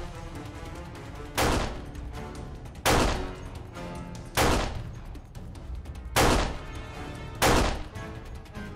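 Gunshot sound effects, five single shots about a second and a half apart, over light background music.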